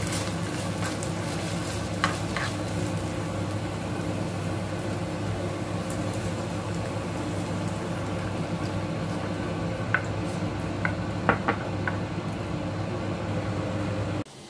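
Century egg, garlic and chili bean sauce sizzling in a nonstick pan while a spatula stirs and scrapes, with a few sharp taps of the utensil against the pan, over a steady low hum. The sound cuts off suddenly just before the end.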